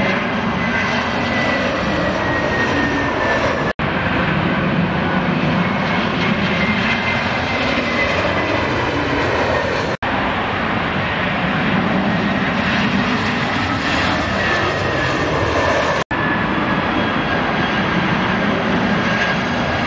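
Twin-engine Airbus A320-family jet airliners on final approach: a steady engine roar with a high whine that slowly falls in pitch as each aircraft passes. The sound drops out for an instant three times where one approach gives way to the next.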